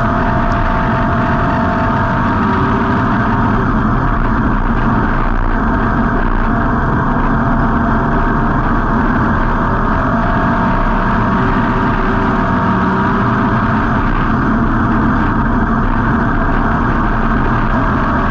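Street stock race car's V8 engine running steadily, heard from inside the car through an on-board camera, muffled with little sound above the low-mid range.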